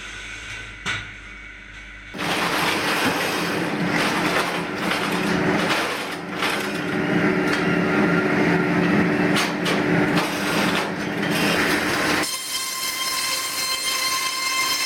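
Circular sawmill blade cutting through wood: after a quiet start with one sharp knock about a second in, the cut runs loud for about ten seconds, then the saw runs free with a steady high whine.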